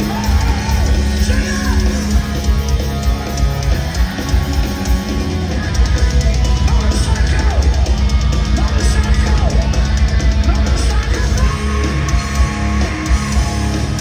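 Heavy metal band playing live and loud: electric guitars over bass and drums, with a singer's yelled vocals.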